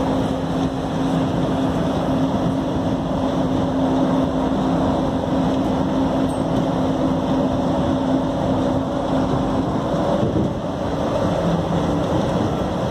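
Skylink automated people-mover train running along its elevated guideway, heard from inside the car: steady running noise of the rubber-tyred vehicle with a steady low hum, easing slightly about ten seconds in.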